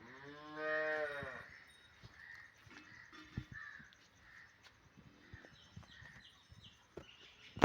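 A single bleating call from livestock, about a second long, rising then falling in pitch, followed by scattered faint knocks and clicks.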